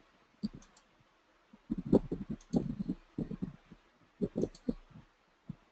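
Computer keyboard and mouse clicks: a scattered, irregular run of short taps.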